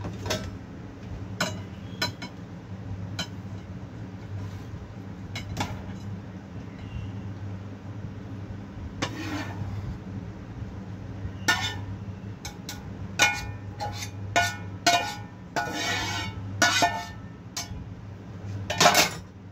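Metal spatula scraping and clinking against a non-stick frying pan and a plate as stir-fried food is scraped out of the pan, in scattered short strokes that come thicker from about halfway through. The loudest is a longer scrape near the end.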